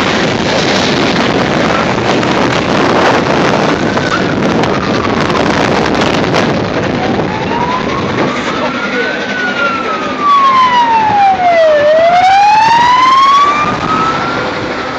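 Passenger carriages of a departing steam train rolling past on the rails, a rush of noise with clacks that fades as the train draws away. From about seven seconds in, an emergency vehicle's siren wails, rising and falling in pitch, and it is loudest near the end.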